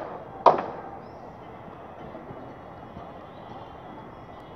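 Two sharp knocks, the second about half a second in, then steady outdoor background noise with a faint high tone running through it.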